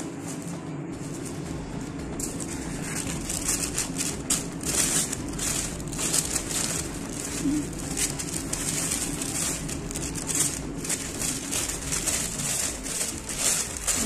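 A sheet of paper crinkling and rustling in irregular bursts as it is folded and wrapped around a sandwich, starting about two seconds in.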